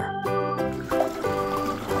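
Background music, with water sloshing and splashing from about half a second in as a hand churns the water in a tub.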